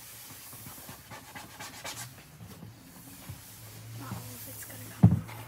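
Paper towel rubbing and swishing over a hard desktop that has just been sprayed with glass cleaner. A single loud thump on the desk comes near the end.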